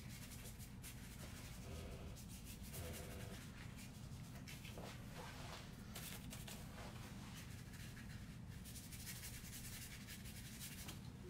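Paintbrush brushing and dabbing on paper in quick irregular strokes, faint scratchy sounds over a steady low room hum.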